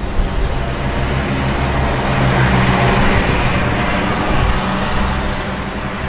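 City street traffic: a heavy motor vehicle's engine rumbling close by, its noise swelling about halfway through and easing off as it passes.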